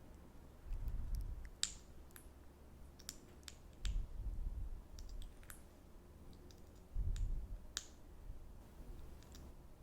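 Close-miked ASMR mouth sounds: scattered sharp, wet clicks and smacks of lips and tongue at irregular intervals, with soft low swells about every three seconds.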